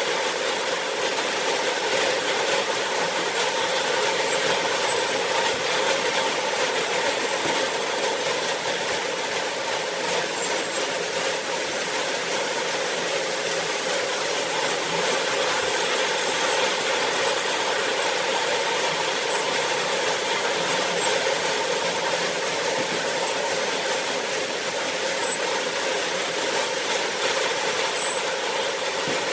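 Farm machinery running steadily, an engine or motor with a light rattle.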